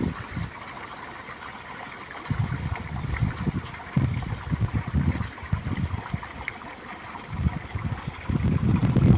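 Small stream of running water trickling and gurgling steadily, with irregular low rumbles coming and going several times over it.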